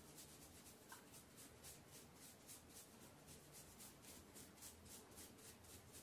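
Near silence with faint, quick rubbing strokes, about five a second: hands working hair and dirt off a Roomba roller brush.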